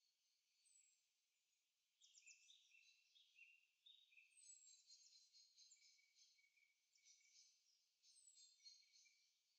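Faint birdsong: several birds chirping and trilling, with a few short high falling whistles, busier from about two seconds in.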